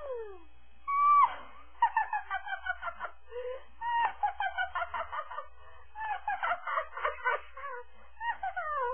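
Squeaky, high-pitched calls in quick chattering runs of short falling syllables, opening with a falling glide, with one held whistle-like tone about a second in.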